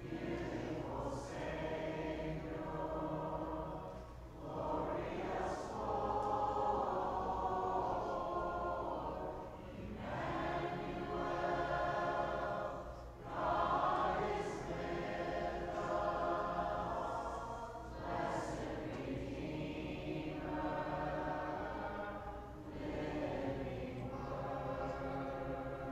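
Church congregation singing a hymn together, in phrases with brief pauses between them.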